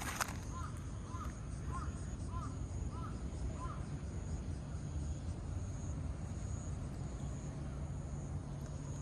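A bird calling outdoors: a short knock just at the start, then a series of about six short, arched call notes, one roughly every two-thirds of a second, stopping a little before halfway. Under it runs a steady low outdoor rumble and a thin, steady high tone.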